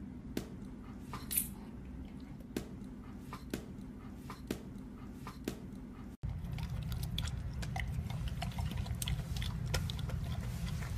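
Quiet room tone with faint, scattered short clicks and ticks, about one a second. After a cut about six seconds in, a steadier low hum comes in with small ticks.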